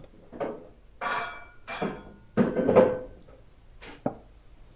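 A run of clinks and knocks from objects being handled, four or five short clatters with the loudest about two and a half seconds in, then a single sharp click near the end.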